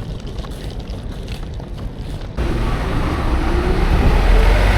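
Wind and water noise with a low rumble, as on a moving boat; the noise jumps suddenly louder about halfway through.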